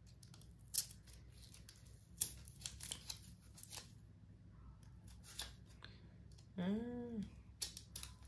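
Utility knife blade cutting and scraping through tape and thin cardboard on a small photocard mailer: a run of faint scratches and clicks. Near the end comes a brief hummed "mm" that rises and falls in pitch.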